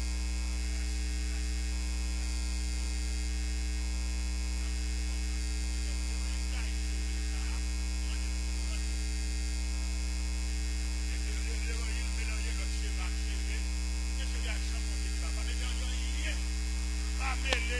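Steady electrical mains hum with a row of higher overtones, holding at one even level.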